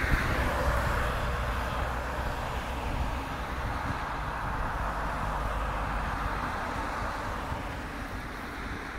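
A line of cars driving past one after another on a wet road: steady tyre hiss and engine noise, loudest about a second in and slowly easing toward the end.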